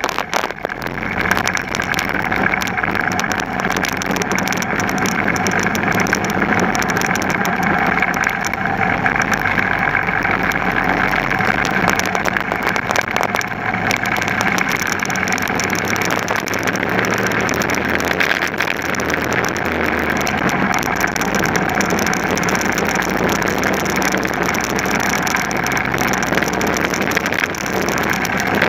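Racing kart engines running hard at speed, heard from an onboard camera on a kart in the pack. The sound gets louder about a second in and then holds steady, dense and loud.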